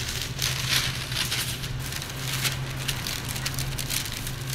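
Rapid crinkling and crackling of wrapping being handled, densest in the first two seconds, over a steady low hum.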